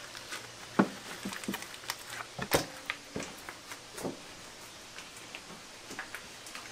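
Scattered kitchen knocks and clicks as whole raw chickens are handled in a steel bowl. The loudest knock comes about two and a half seconds in.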